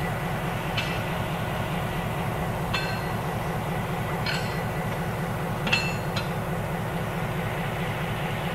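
Steady low rumble of an EMD SW1200 diesel switcher locomotive idling, with about five short, ringing metallic clinks scattered through it.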